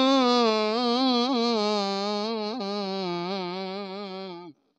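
A man's voice singing one long held note without accompaniment, with a wavering vibrato, slowly sinking in pitch, the drawn-out opening of a Punjabi folk song. It cuts off abruptly near the end.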